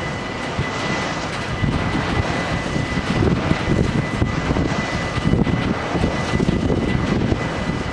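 Freight train of hopper wagons rolling past at a level crossing: a steady rumble with wheel clatter on the rails. A steady high ringing from the crossing bells runs over it.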